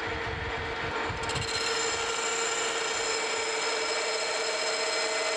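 Metal lathe boring out a bronze bushing blank with a boring bar, over the steady whine of the lathe. About a second in the cut begins, with a high ringing chatter that holds steady. The chatter comes from the 1-inch boring bar flexing at about 6 inches of overhang.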